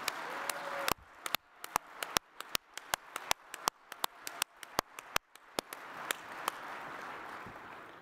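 Audience applauding an award recipient. A few seconds in, one person's sharp, even claps stand out at about five a second, then the general applause swells again and fades away near the end.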